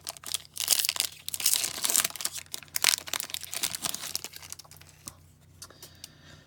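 Foil trading card pack wrapper being torn open and crinkled, a dense crackling that is heaviest in the first few seconds and dies down near the end.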